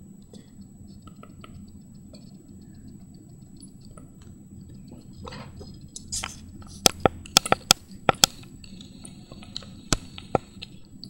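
Low room hum, then a quick run of sharp clicks and taps a little past halfway, with a couple more near the end, as a small plastic food-colouring squeeze bottle is squeezed and handled over a stainless steel bowl of water.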